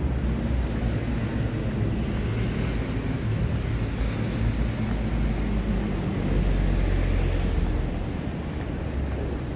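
City street traffic: cars passing in a steady low rumble, growing louder for a couple of seconds about six seconds in.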